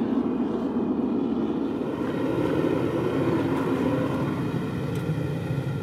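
Gas burner of a beer-keg foundry furnace running with a steady roar, freshly lit to melt a crucible of sterling silver.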